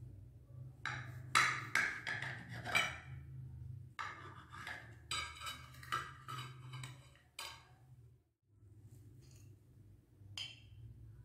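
Kitchen knife slicing through a baked cake, tapping and scraping on the ceramic plate beneath in two runs of quick clicks, then a single clink near the end as a slice is set onto a plate.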